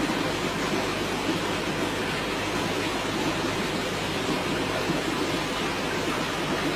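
Aquarium air stones bubbling: a steady, even rush of bubbling water noise.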